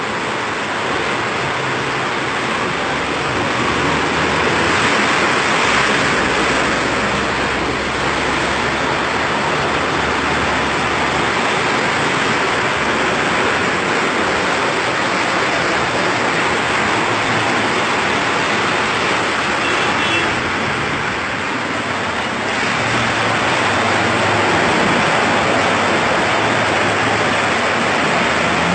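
Floodwater rushing in a fast torrent down a paved street, a steady loud rushing noise throughout.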